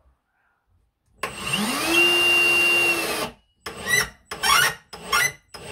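A power drill's motor spins up, runs steadily for about two seconds and stops, typical of driving a screw to fix cornice. It is followed by several short, rough scraping strokes.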